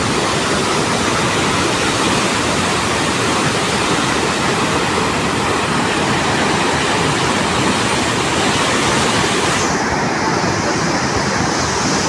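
Fast floodwater rushing steadily. Near the end the hiss in the high range changes abruptly.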